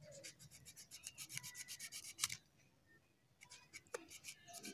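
Small blade scraping and shaving the freshly cut top of a dragon fruit stem in quick short strokes, leveling the cut surface of the rootstock for grafting. The sound is faint: about two seconds of rapid strokes, a pause, then a shorter run near the end.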